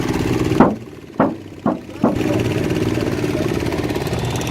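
A motor running steadily drops away about half a second in. It gives four short, sharp blips over the next second and a half, then runs steadily again.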